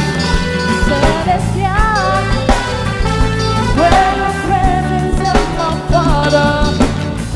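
Live band music with a melodic lead line that bends and wavers in pitch over a full accompaniment.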